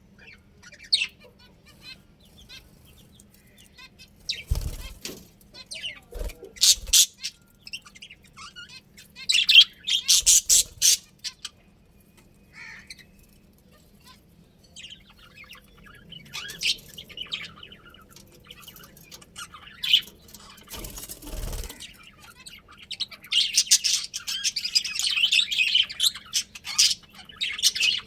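Budgerigars chirping in scattered bursts, building to dense, continuous chatter in the last few seconds. A few low thumps come in among the calls.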